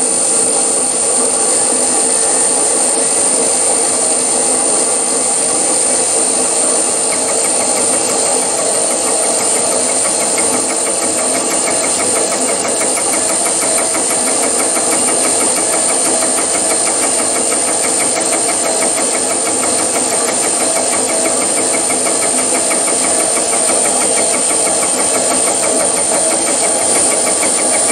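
Milling machine spindle running with a fly cutter while the table power feed traverses the workpiece along the x-axis. It is a steady machine hum with a high steady whine over it. From about a third of the way in, a fast, even ticking joins as the fly cutter takes a facing cut across the metal.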